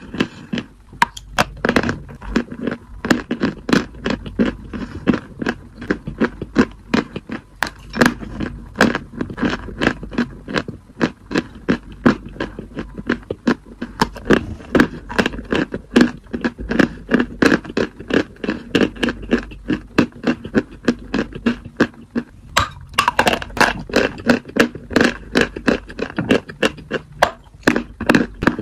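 Dry white chalk being bitten and chewed: a steady run of sharp, dry crunches, several a second.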